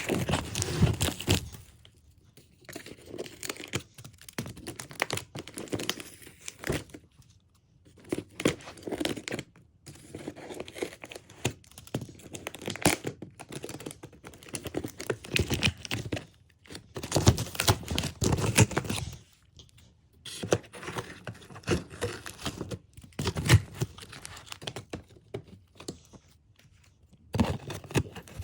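Packaging being torn open and crinkled by hand, in irregular bursts with short pauses between them.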